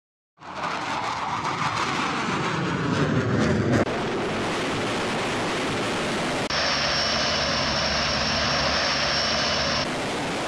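Jet-aircraft-style roar used as a flying sound effect. It swells and sweeps over the first few seconds, then holds as a steady rush with a thin high whine through the middle, changing abruptly where the sound is edited.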